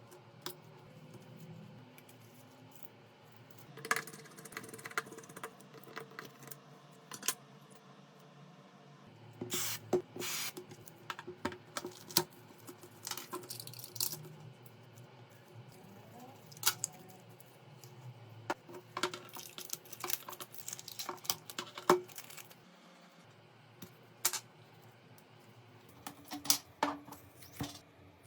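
Small clicks, taps and light scrapes of hand tools and parts during a smartphone repair, coming irregularly with short quiet gaps, one sharper tap about 22 seconds in.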